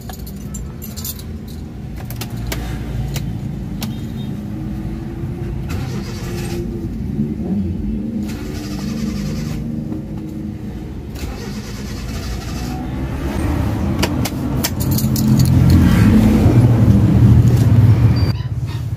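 Carbureted four-cylinder engine of a Honda Civic running, heard first from inside the cabin and getting louder about fifteen seconds in, at the open engine bay.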